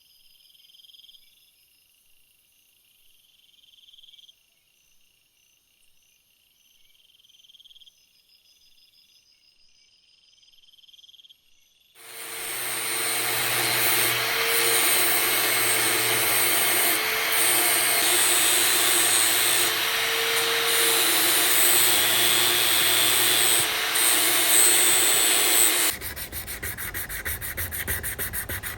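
Faint high chirping, then about twelve seconds in a power tool starts abrading a surface with a steady hum and a loud sanding hiss. Near the end it gives way to a fast, even rasping.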